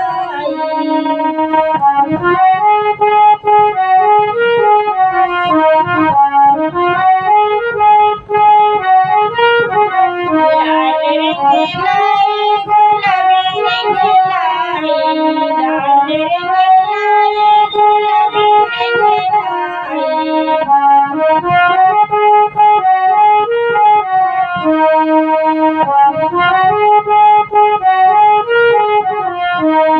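Harmonium playing a bhajan melody without voice, sustained reedy notes and chords moving up and down in steps.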